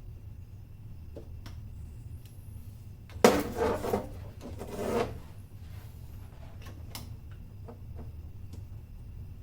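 Handling noise from work with tools and parts: scattered light clicks and knocks, with a loud scraping rustle lasting about two seconds, over a steady low hum.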